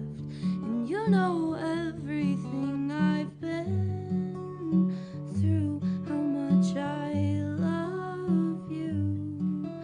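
Acoustic guitar played in a steady even pattern with a woman singing over it.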